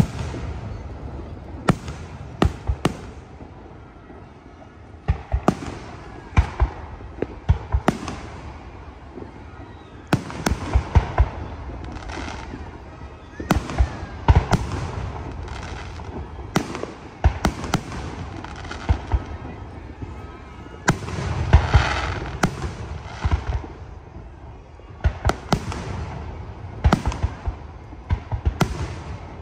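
Aerial fireworks shells bursting overhead. There are repeated sharp bangs every second or so, often in quick clusters, with a louder, denser volley about three-quarters of the way through.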